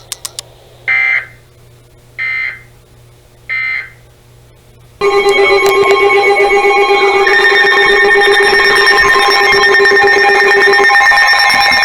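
Emergency Alert System signalling between two weather warnings: three short digital data squawks about a second apart, the end-of-message code, then about five seconds in a loud, steady electronic alert tone made of several held pitches starts and carries on.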